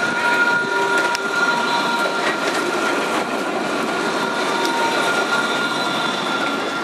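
Alstom Citadis 302 low-floor tram passing close by on street track and pulling away, its wheel noise on the rails carrying a steady high-pitched whine.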